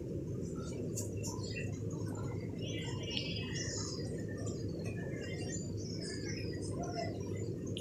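Steady low rumble of a pan of curry cooking on the stove, while small birds chirp on and off in the background, with a short trilling call about three seconds in.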